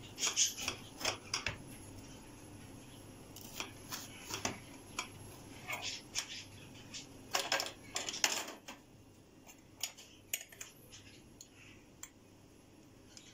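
Serrated knife sawing through a baked brownie's crisp crust in short scraping strokes, the blade clicking and scraping against the glass serving plate, in bursts with the loudest strokes a little past the middle.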